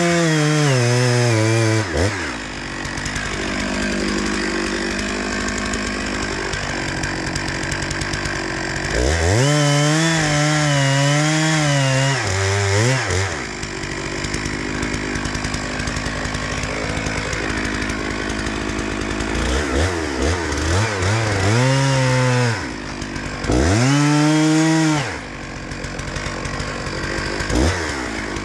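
Two-stroke chainsaw running, opened up to full throttle four times with its pitch rising and wavering, and dropping back to idle in between.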